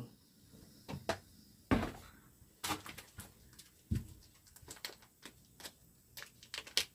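A few knocks and a thump of things set down on a table, then quick small crackling clicks of a plastic sausage wrapper being handled and opened.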